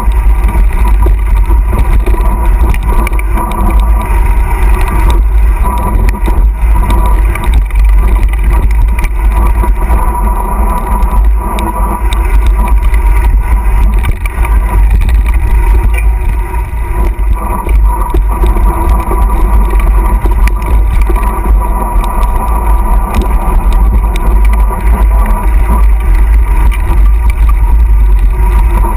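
Wind buffeting the microphone of an action camera on a mountain bike descending a dirt trail, a loud, steady rumble, mixed with the rattle of the bike and its tyres over dirt and stones.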